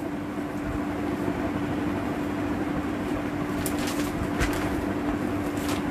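A steady, even hum of room noise, with a few brief rustles and knocks about four seconds in.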